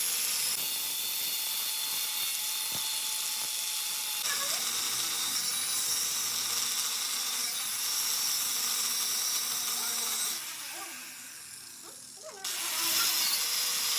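High-pitched running of a small power tool working on metal. It drops away about ten seconds in and comes back about two seconds later.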